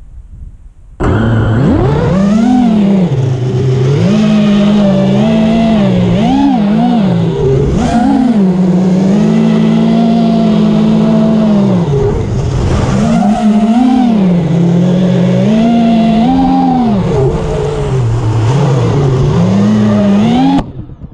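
QQ190 racing quad's Cobra 2205 2500KV brushless motors spinning 5051 tri-blade propellers, heard from a camera on the quad: a buzzing whine that rises and falls in pitch with the throttle. It starts about a second in and cuts off suddenly near the end.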